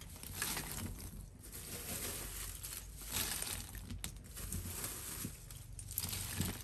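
Lumps of charcoal being piled by hand onto a forge fire, with light, irregular clinks and crackles as the pieces land and settle.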